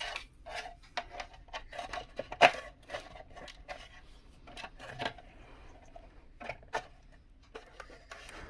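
Irregular small clicks, taps and rustles of hands handling a power cord and plastic parts of a mixer grinder during reassembly, with a sharper knock about two and a half seconds in and another near five seconds.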